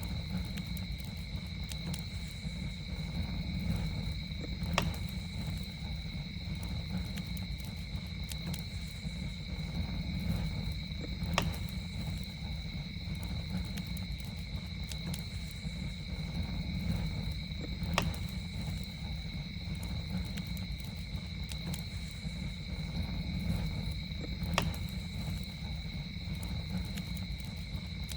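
Campfire crackling, with a few sharp pops standing out over a steady low rumble, against a steady high insect trill.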